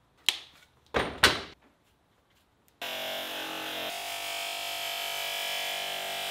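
Three sharp knocks in quick succession, then from about three seconds in a steady bed of background music.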